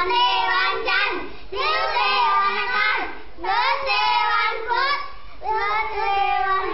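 A group of young children singing together into the camera in loud, high-pitched voices, in short phrases with brief breaks between them.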